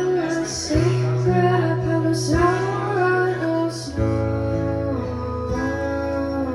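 Live band music: plucked acoustic guitar over held bass notes that change a little under a second in and again about four seconds in, with a wavering melody line above.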